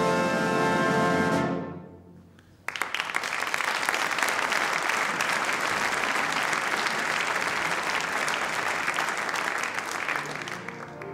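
An opera orchestra's held chord, cut off about a second and a half in. After a short pause, an audience bursts into applause, which carries on and fades near the end.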